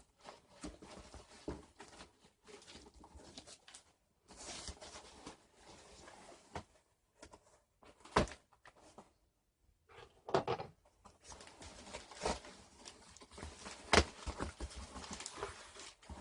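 Cardboard shipping box being opened and handled, with packing paper rustling and crinkling in irregular bursts and a few sharp knocks and clicks, the loudest near the end.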